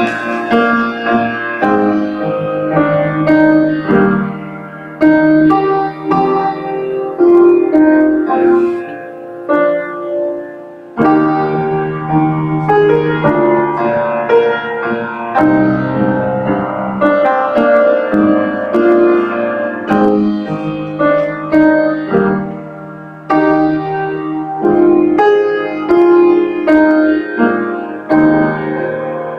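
Piano playing a slow piece of chords and melody, each note struck and ringing on.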